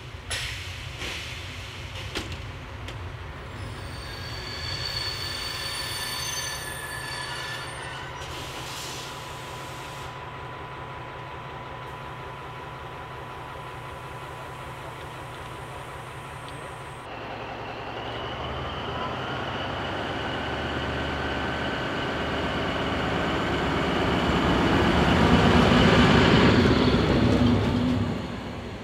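DR class 112 (V 100) diesel-hydraulic locomotive hauling a passenger train past at low speed: a steady diesel engine rumble that grows louder from about halfway, peaks as the locomotive goes by near the end, then drops away. Thin high wheel squeal from the wheels on the rails comes and goes over it.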